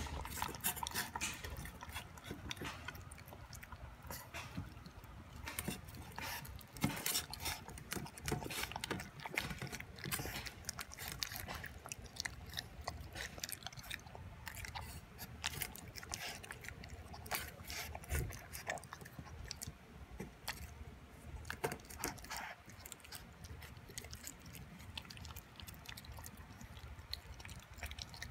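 Boston Terrier puppy eating raw beef and vegetables from a stainless steel bowl: irregular chewing and licking, with many sharp clicks against the metal bowl.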